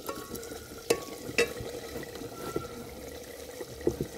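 A metal ladle stirring a pot of cooked vegetable curry on a wood fire, clinking sharply against the metal pot three times: about a second in, half a second later, and near the end. A steady low hiss runs underneath.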